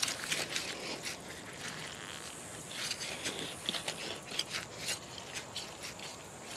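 Hands pulling weeds and working dry grass and soil: irregular crackling and rustling.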